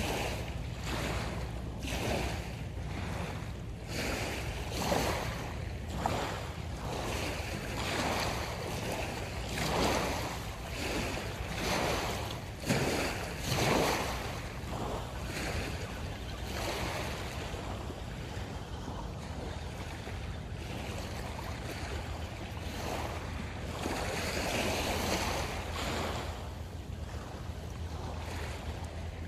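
Small waves washing against the shore, swelling and falling about once a second, with a few louder washes about ten to fourteen seconds in. A steady low wind rumble on the microphone sits under the waves throughout.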